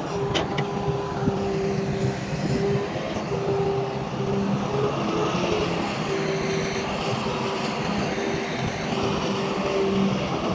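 Heavy diesel earthmoving machinery running steadily, a constant engine hum with a higher tone that comes and goes, and a couple of faint clicks just after the start.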